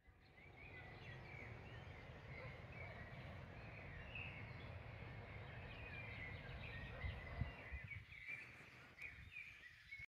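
Outdoor ambience of small birds chirping and twittering over a steady low rumble, which fades about eight seconds in.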